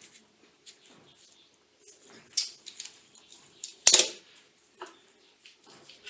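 Steel workpieces being handled on the bench: scattered light metal clinks and scrapes, with one sharp clank about two and a half seconds in and a louder ringing clank about four seconds in.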